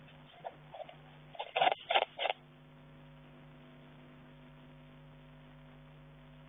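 Steady electrical hum of an infrared nest-box camera, broken by a few short noises about half a second in and a cluster of short loud ones about one and a half to two and a half seconds in, from the commotion as a marten raids a barn owl nest box.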